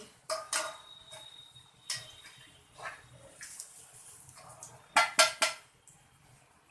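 Metal kitchen utensils clinking against cookware, a few separate clinks and then a louder quick cluster of three about five seconds in.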